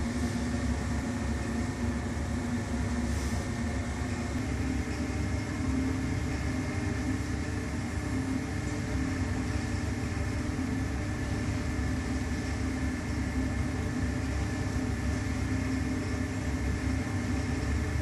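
Steady low machine hum with a few held tones. A slightly higher tone joins about four seconds in.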